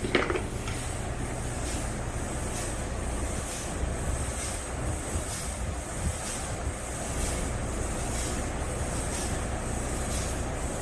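Electric sprayer running steadily while spraying phytoncide disinfectant, with a low hum and a regular hissing pulse about every two-thirds of a second.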